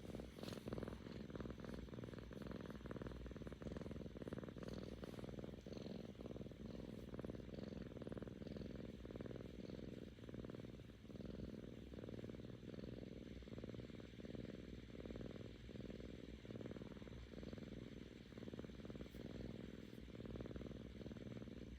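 A seven-month-old kitten purring steadily and contentedly, a low fluttering rumble that swells and eases in cycles of a second or two, with each breath.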